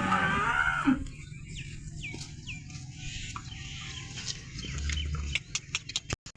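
A cow mooing, the call ending about a second in, followed by chickens clucking, with scattered clicks near the end.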